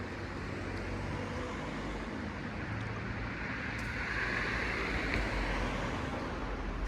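Town street ambience: a steady hiss of traffic noise with a low rumble, swelling about four seconds in as a vehicle goes by, then easing.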